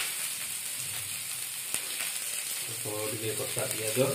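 Freshly chopped onions sizzling in hot oil in a steel frying pan, a steady frying hiss with small pops and crackles.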